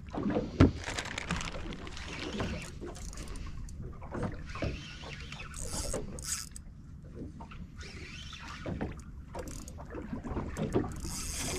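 Water slapping against a small fishing boat's hull, with scattered knocks and clicks of gear and a sharp thump about half a second in. Brief hissing rushes come around the middle and again near the end.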